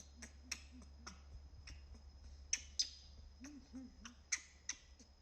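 About ten sharp clicks at irregular intervals, mixed with a few short, soft, low hoot-like sounds that rise and fall in pitch, in two clusters near the start and just past the middle.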